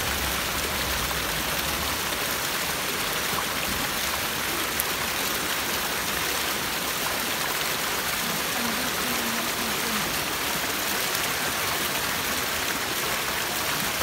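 A stone fountain's spout pouring steadily into its basin, with water spilling over the basin's rim: a continuous, even splashing.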